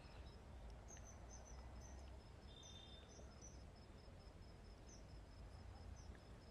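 Near silence: faint outdoor ambience with an insect chirping steadily about five times a second, and a few brief, high bird chirps.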